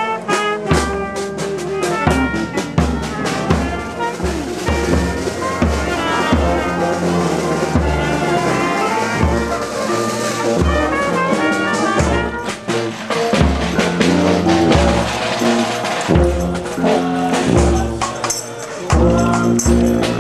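A marching brass band playing a march: brass including a tuba carrying the tune and bass line over a steady bass-drum beat, with a cymbal mounted on the bass drum.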